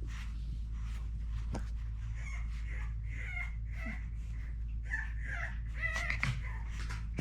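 French Bulldog puppy whimpering: a run of short, high, wavering squeaks from about two seconds in until near the end, over a steady low hum.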